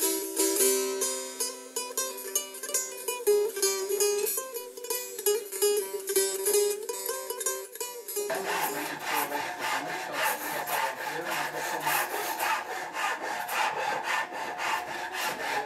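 Plucked string instrument music for about eight seconds. The music then cuts to a hand rasp scraping across wood in quick repeated strokes.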